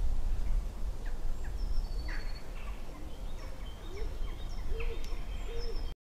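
Woodland birds calling: several small birds give short high notes and quick falling chirps, and a low, hoot-like call comes two or three times near the end. There is one sharp tap about five seconds in, over a steady low rumble.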